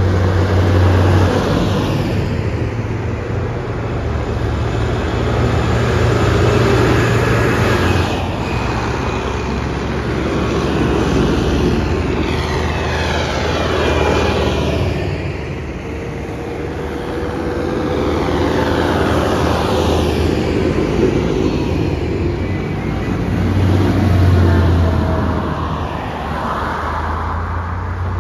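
A procession of diesel tractors, with a few cars among them, driving past one after another on a wet road: a steady low engine hum under tyre noise, each engine note sliding down in pitch as it goes by.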